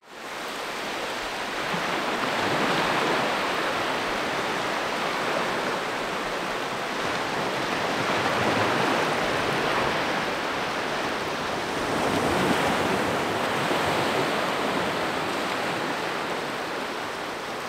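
Small waves breaking and washing onto a sandy beach: a steady hiss of surf that swells and eases every few seconds.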